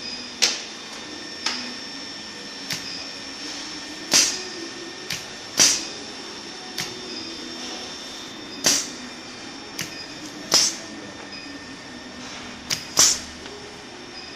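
Induction heating machine's steady electrical hum with thin high whining tones, broken by about a dozen sharp clacks at uneven intervals, roughly one a second.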